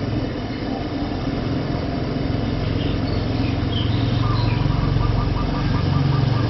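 A steady low rumble, growing slightly louder in the second half.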